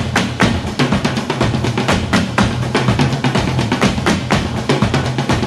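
Music with a steady, fast drum-kit beat over a bass line.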